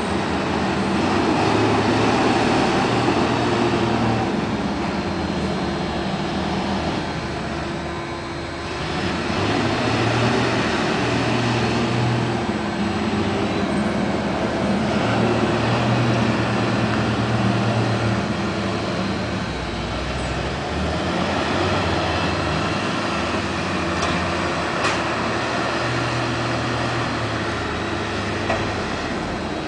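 Large diesel tractors working a silage clamp, driving up and back down the heap to spread and pack chopped forage. The engine note rises and falls as they climb and reverse, dipping briefly about a quarter of the way in.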